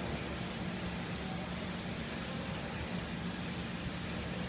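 Steady low mechanical hum under an even hiss, unchanging throughout.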